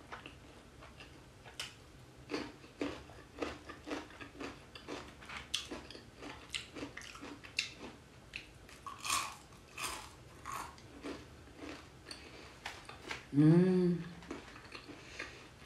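A person biting and chewing boneless fried chicken topped with corn and cheese, short chewing clicks coming about twice a second. Near the end there is a short hummed 'mm' that rises and falls.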